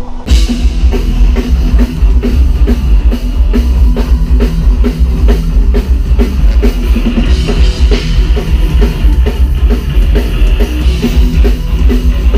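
Loud metal music with a pounding drum kit and heavy bass drum, cutting in abruptly.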